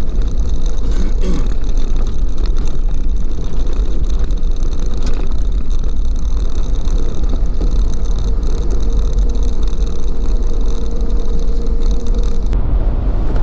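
Vehicle cabin noise while driving a gravel road: a loud, steady low rumble of engine and tyres, with a faint steady whine that stops shortly before the end.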